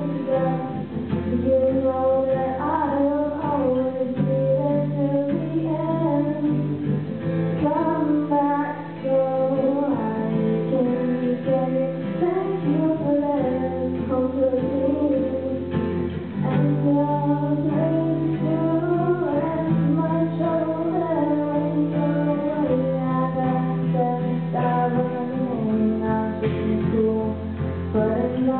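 A girl singing a song to the accompaniment of two acoustic guitars.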